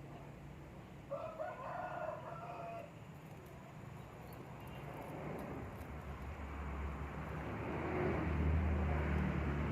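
A rooster crowing once, starting about a second in and lasting under two seconds. A low hum grows louder over the last few seconds.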